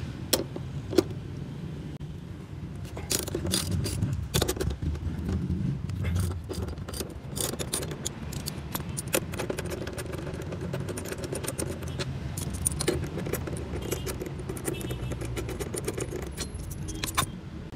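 Socket wrench on a 14 mm socket and extension loosening car seat mounting bolts: a run of irregular metallic clicks and clinks as the ratchet and socket work the bolts.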